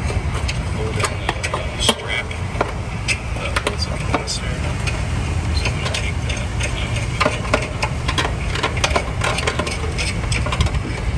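Irregular small clicks and taps of wires, spade connectors and a metal-cased dual run capacitor being handled inside an AC condenser's control box, over a steady low rumble.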